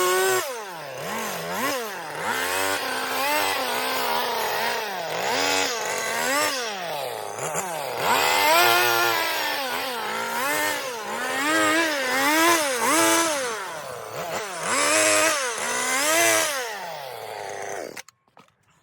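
Chainsaw carving into a wooden log, its engine revving up and dropping back again and again as the cuts go in and come out. It stops abruptly near the end.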